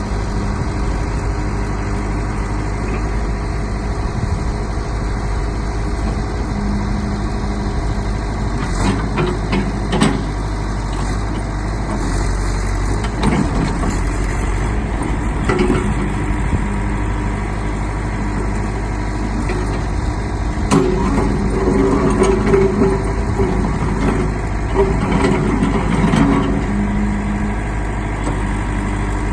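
John Deere 210C backhoe loader's diesel engine running steadily, with two knocks about nine and ten seconds in and a louder, busier stretch a little past twenty seconds.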